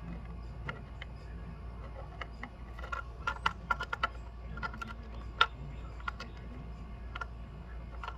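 Jewelry welder firing a run of sharp, irregular clicks as it welds a broken charm bail. The clicks come thickest around the middle, over a steady low hum.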